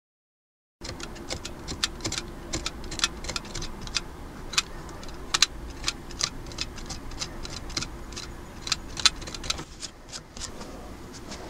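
Irregular light clicks and scratches of a pointed metal tool picking and scoring at the end grain of a small clamped wooden block, several a second, over a low steady hum. The sound starts about a second in, after a silent gap.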